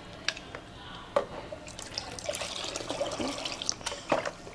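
Turmeric water sloshing and splashing in a plastic bucket as a hand stirs it with a metal cup, with a few sharp knocks.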